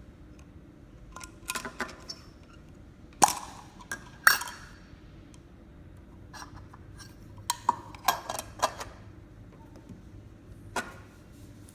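Irregular clicks and knocks of hard plastic parts being handled and set down, with two louder knocks about three and four seconds in and a quick run of clicks near the end, over a faint steady low hum.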